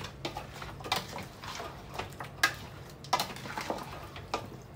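Metal spoon stirring chicken pieces in a metal cooking pot, scraping and clinking against the pot's sides and bottom with a few sharper knocks.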